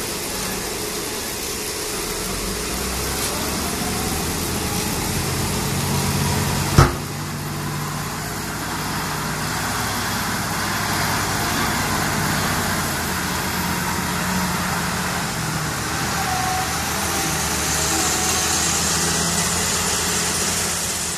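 XD958G 5-ton wheel loader's diesel engine running steadily while the machine drives with a loaded bucket of coal. One sharp bang is heard about seven seconds in.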